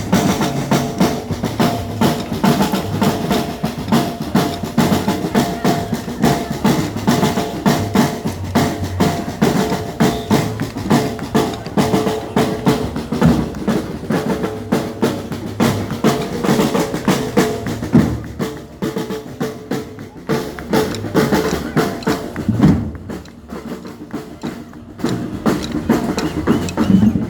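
Music with a steady drum beat, bass drum and snare over sustained pitched notes, getting thinner and quieter near the end.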